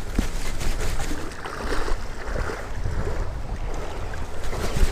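Wind rumbling on a handheld action camera's microphone, over the rushing noise of river water, with a few faint clicks from the camera being handled.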